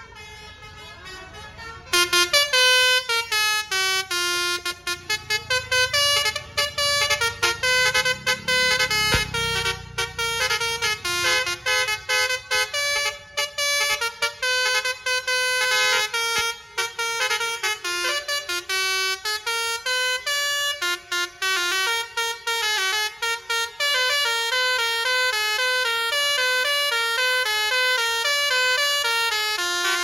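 A bus's basuri telolet horn, a set of musical horns, playing a fast tune of quick, stepping notes; it starts suddenly about two seconds in and keeps going.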